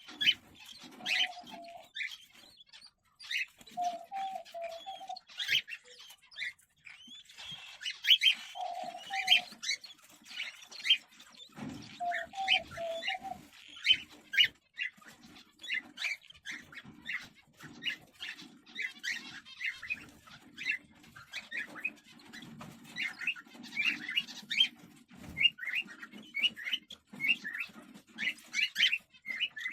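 Cockatiels chirping: rapid short, high chirps repeated several times a second, broken by a few lower warbling calls.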